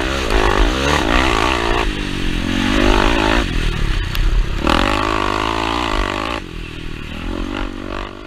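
KTM 525 XC's single-cylinder four-stroke engine revving up hard and backing off several times as it is ridden over a dirt track. The sound fades out near the end.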